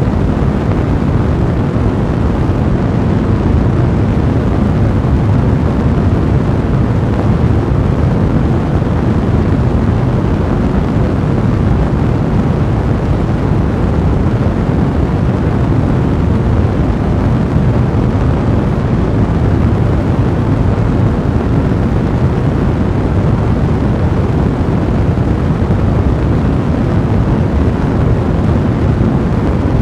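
Fire blazing: a steady, deep rushing noise with no breaks.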